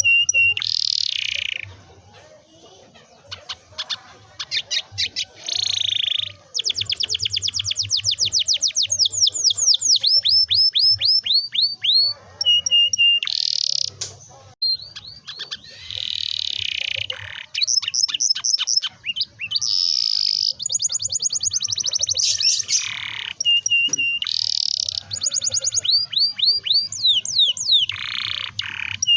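Domestic canary singing a long song of rapid rolled trills, falling whistled sweeps and buzzy phrases, with a quieter stretch about two seconds in.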